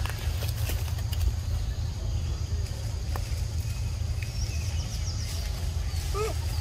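Outdoor forest-floor sound dominated by a steady low rumble, with a faint high steady whine over it and a few light clicks and rustles. Near the end comes a short squeaky animal call that rises and falls in pitch.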